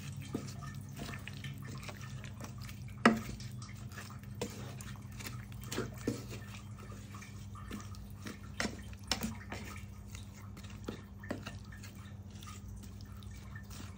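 Wooden spatula stirring shallots, garlic and chicken in a little water in a non-stick pan: scattered wet clicks and knocks of the spatula against the pan and ingredients, the sharpest about three seconds in. A low steady hum runs underneath.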